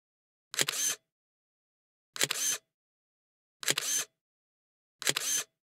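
Camera shutter click, four times about one and a half seconds apart, the same click each time, with dead silence in between.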